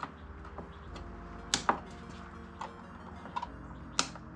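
Scattered sharp plastic clicks and snaps, about six in four seconds, some in quick pairs, from zip ties being worked by hand on a plastic mesh grill fastened into a car bumper.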